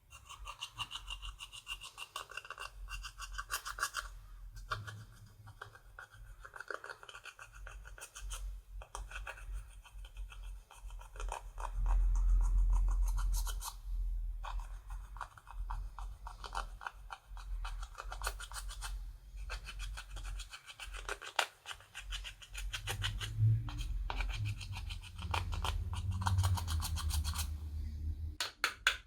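Slime being stirred and squished with makeup mixed in, giving rapid sticky crackling and clicking, with a low rumble of handling that swells about halfway through and again near the end.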